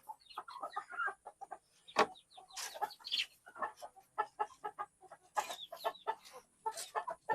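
Chickens clucking: many short, overlapping clucks and calls from a flock in the pen, with one sharp knock about two seconds in.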